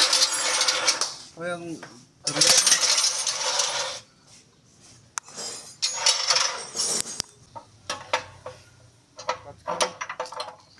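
Metal tools and parts clinking and rattling in three bursts of a second or two each, then scattered light metallic clicks and taps.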